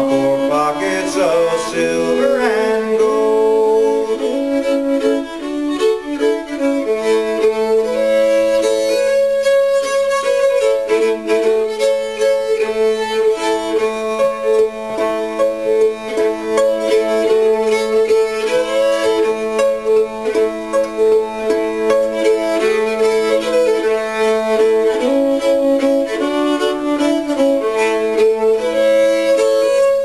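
Solo fiddle bowing a lively old-time tune, the melody moving over a low drone note held through much of it.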